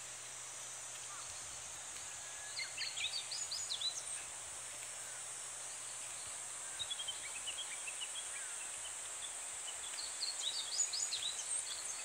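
Cicadas making a steady high drone, with a Japanese bush warbler singing over it: three short bursts of quick whistled notes, about two and a half seconds in, around seven seconds in as a falling run, and again near ten seconds.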